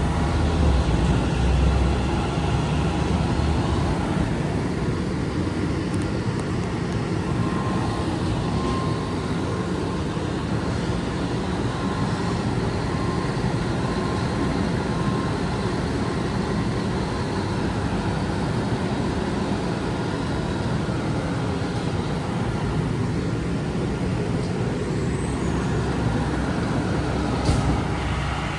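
Pierce fire engine's diesel engine idling with a steady low rumble, a little louder in the first couple of seconds.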